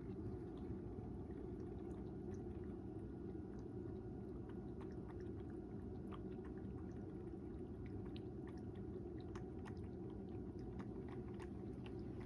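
A cat lapping water from a bowl: a run of faint, quick, wet clicks from its tongue, over a steady low hum.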